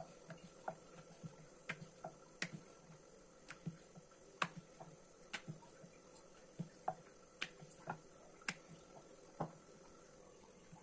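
Wooden rolling pin clicking and knocking against a round wooden rolling board while chapathi dough is rolled out: short, sharp, irregular taps, about one or two a second.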